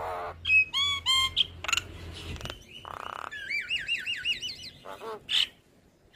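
Javan myna singing a varied run of calls: clear sweeping whistles, a fast series of wavering whistled notes, and harsh rasping squawks, falling quiet near the end.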